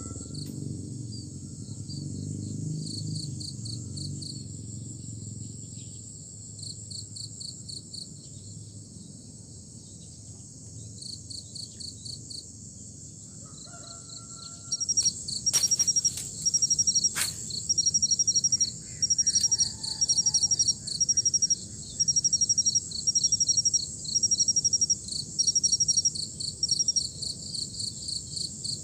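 Insects chirping in high, rapid pulse trains. About halfway through, a much louder one nearby joins in, chirping in steady bouts about a second long with short pauses. Two sharp clicks come a couple of seconds apart as the loud chirping begins.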